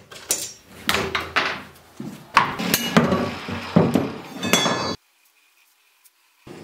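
Steel office-chair frame and parts knocking and clanking against a wooden workbench as the chair is taken apart: a string of sharp knocks and metallic clinks, some of them ringing briefly. It cuts off abruptly about five seconds in.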